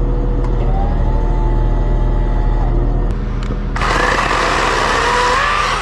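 A steady low engine hum runs throughout. Near the end a Wild Badger 40-volt electric chainsaw runs up loudly for about two seconds with a high, slightly rising motor whine, then stops abruptly.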